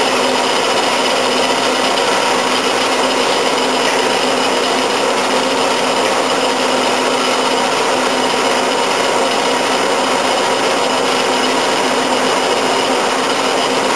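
Harbor Freight 4.5-inch metal-cutting band saw running steadily as its blade cuts through a metal bar under light spring down pressure.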